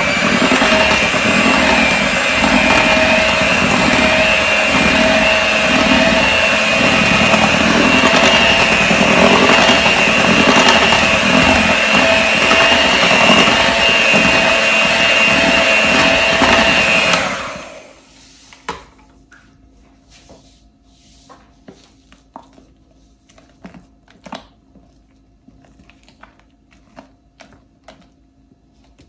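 Electric mixer running steadily at speed, beating whipped cream into cream cheese in a bowl, with a constant motor whine. It is switched off about seventeen seconds in, leaving only scattered light clicks and taps.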